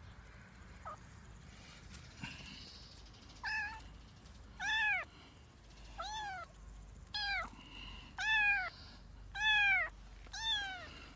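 Kitten meowing repeatedly: seven short, high-pitched mews, each rising then falling in pitch, about a second apart, starting a few seconds in.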